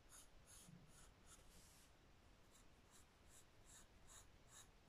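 Faint scratching of a graphite pencil drawing on squared notebook paper, in short strokes about two or three a second.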